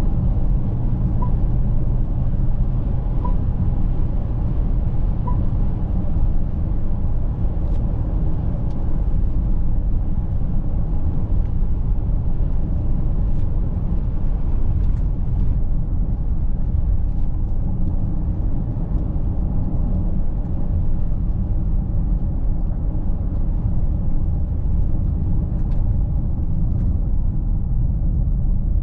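Mercedes-Benz GLC coupé 300de 4Matic plug-in diesel hybrid on the move: a steady low rumble of road and drive noise. Three short, faint beeps about two seconds apart come near the start, and a few faint ticks are scattered through.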